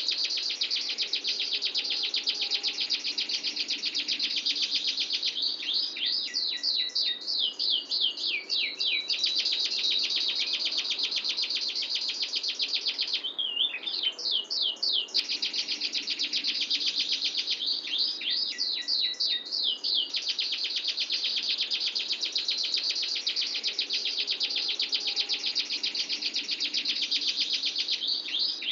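Domestic canary singing a long, unbroken rolling song of dense fast trills. Several times it switches to runs of quick separate sweeping notes before rolling on again.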